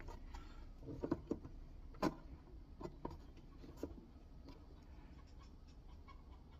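Scattered light clicks and taps of hand work on a wall penetration flange, about half a dozen in the first four seconds, then faint handling noise.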